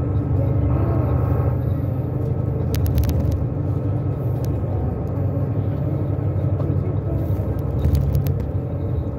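Steady low rumble of engine and road noise heard from inside a moving vehicle, with a few brief clicks about three seconds and eight seconds in.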